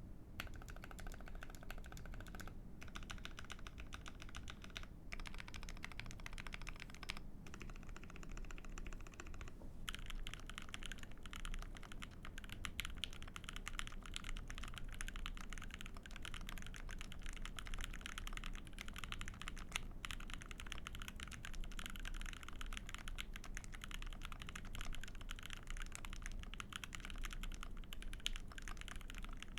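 Typing on a KBDFans Maja Alice-layout mechanical keyboard with a brass plate, Krytox-lubed Thic Thock Konpeitou switches and GMK Cafe keycaps: a rapid stream of keystrokes. A few brief pauses break it in the first ten seconds, then it runs on continuously.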